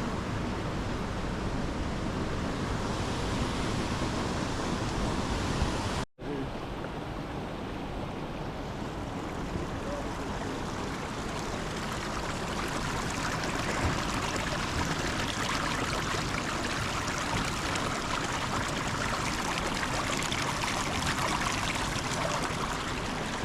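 Steady rush of falling water from waterfalls in an icy creek canyon. It cuts out for an instant about six seconds in, then carries on unchanged.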